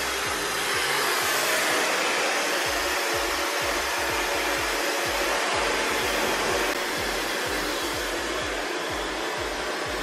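Bopcal high-speed hair dryer blowing steadily at close range while drying hair.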